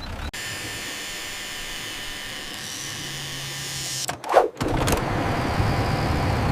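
A vehicle engine sound effect: a steady running sound, a short pitched blip about four seconds in, then a louder engine sound.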